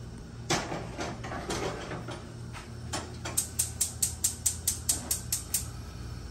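Gas range's spark igniter clicking rapidly, about five sharp ticks a second for a couple of seconds, as a burner knob is turned to light the burner. A few scattered knocks come before it.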